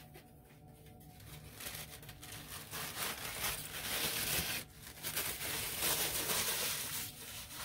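Packaging wrap crinkling and rustling as it is pulled off clear acrylic organizer panels. It starts about a second in, breaks off briefly a little past the middle, then goes on.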